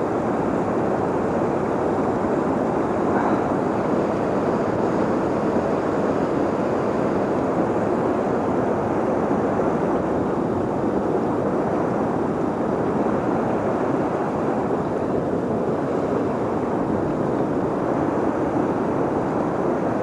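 Steady rush of high floodwater pouring through a dam and running fast downstream, an even noise that does not let up.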